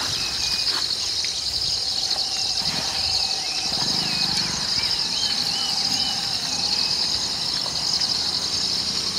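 Night-time insect chorus: a steady, high-pitched pulsing trill of crickets, with a few faint short chirps in the middle.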